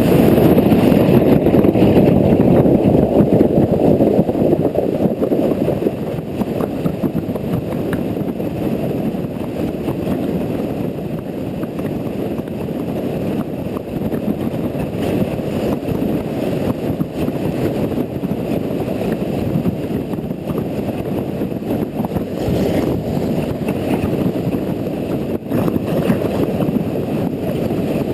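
Steady rushing wind and road noise from a camera riding on a Honda Integra NC750D motorcycle in the rain, with wind buffeting the microphone.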